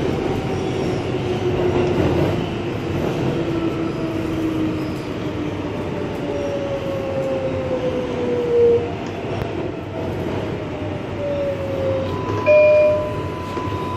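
New York City subway car running, heard from inside: a steady rumble and rattle with thin whining tones that slide slowly down in pitch, and a brief higher tone about a second and a half before the end.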